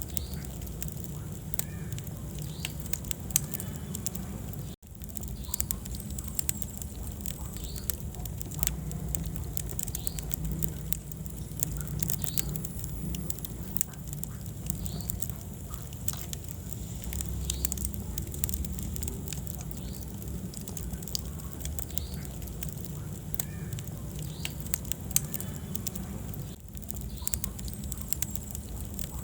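Wood fire in a fireplace crackling, with frequent sharp pops and snaps over a steady low rumble of flames. The sound drops out for an instant about five seconds in.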